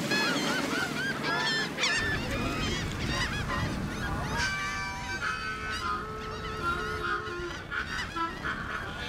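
A flock of Canada geese honking, many calls overlapping, densest in the first couple of seconds and then thinning.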